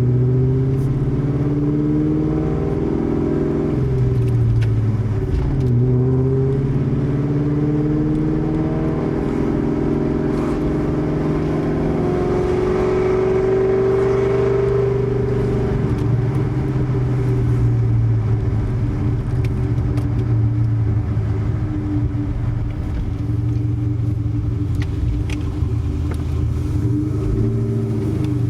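2003 Mustang SVT Cobra's supercharged 4.6-litre V8 running through Kooks headers and a Borla ATAK exhaust, its pitch climbing and dropping several times as it pulls and eases off.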